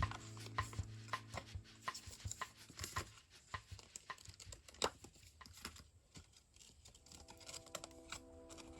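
Irregular small clicks, taps and light rustles from handling a K-pop album's packaging and its paper contents, the sharpest tap about five seconds in. Faint background music comes back in over the last couple of seconds.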